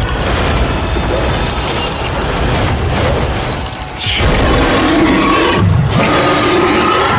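Dramatic action score mixed with battle sound effects, booms and crashes, in a loud dense mix that dips briefly about four seconds in.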